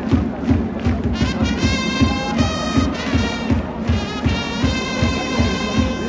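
Stadium music with trumpets over a quick, steady drumbeat of about four beats a second, the brass coming in about a second in, over a large crowd's noise.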